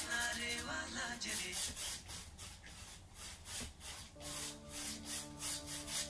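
Flat paintbrush scrubbing back and forth across a stretched canvas with acrylic paint, in regular strokes about two or three a second, over soft background music.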